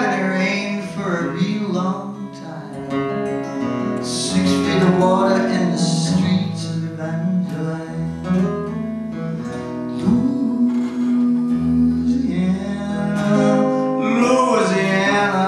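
Live solo acoustic guitar music: a steel-string acoustic guitar fingerpicked through a PA, with notes ringing on and a steady low bass line.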